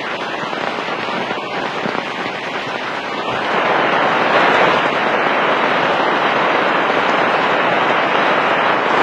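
Heavy rain falling steadily, getting louder about three and a half seconds in.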